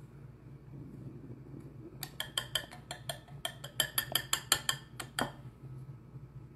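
Small wire whisk beating batter in a ceramic bowl, its tines clinking rapidly against the bowl's side, about six clinks a second for some three seconds, as it breaks up clumps in the batter.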